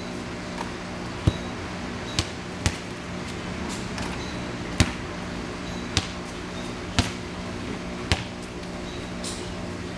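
A basketball bouncing on a hard surface, about seven bounces roughly a second apart, unevenly spaced, over a steady low hum.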